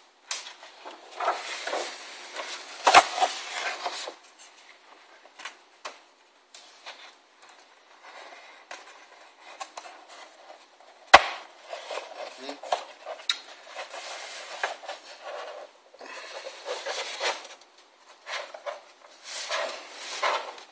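A sheet of paper rustling and crinkling as it is wrapped and pressed around a small electric ducted-fan motor, with two sharp knocks, about three seconds in and again about eleven seconds in.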